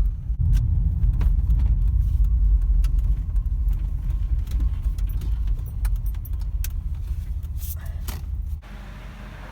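A vehicle driving, heard from inside: a steady low rumble of road and engine noise with light clicks and rattles over it. The rumble cuts off suddenly about a second before the end, leaving a quieter hum.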